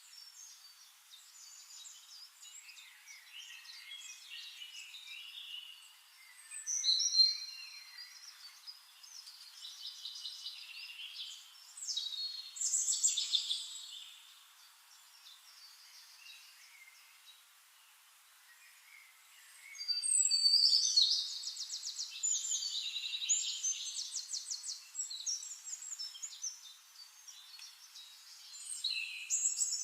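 Songbirds singing and calling: bursts of high chirps and trilled phrases separated by quieter gaps, the loudest a run of rapid trills about two-thirds of the way through.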